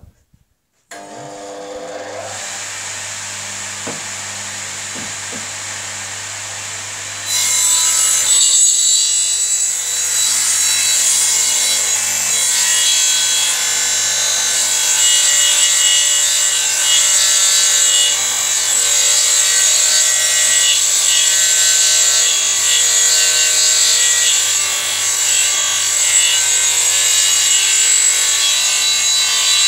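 Radial arm saw switching on about a second in, running up to speed and spinning freely for several seconds, then cutting a long tilted-blade mitre along a 3/4-inch maple-veneered MDF panel for about twenty seconds. The cut is much louder and rougher than the free-running motor.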